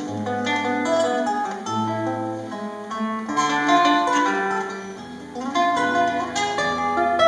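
Acoustic guitar played alone, picked note by note over held bass notes: the instrumental introduction before the singing comes in.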